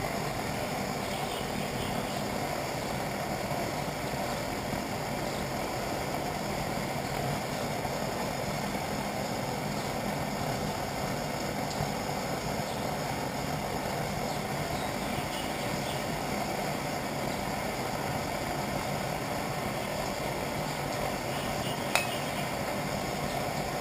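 Camp stove burner running with a steady hiss under a pan of melting wax and kerosene, with one sharp tap about 22 seconds in.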